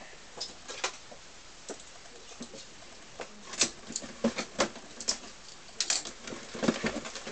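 Cardboard kit boxes being handled and opened: irregular taps, knocks and scrapes, sparse at first and busier in the second half.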